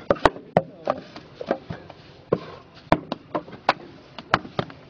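Clay paving bricks being laid by hand: irregular sharp clacks and knocks, several a second, as bricks are set against one another and tapped into place.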